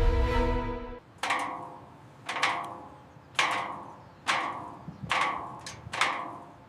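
Hammer striking into wood, repeated blows about once a second, each with a short ringing tail; music fades out during the first second.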